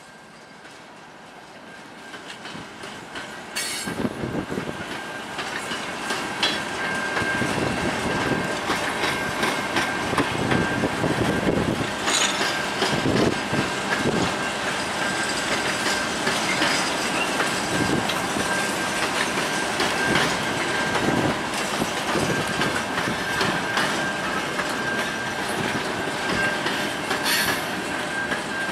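Covered grain hopper cars of a long freight train rolling past, their wheels clicking steadily over the rail joints, with a thin, steady high squeal running through. The rumble builds over the first few seconds, then holds.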